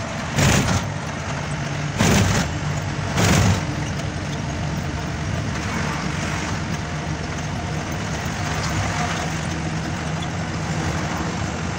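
Ashok Leyland Ecomet BS6 truck's diesel engine running steadily under way, with road noise, heard inside the cab. Three short, loud bursts of noise come within the first few seconds.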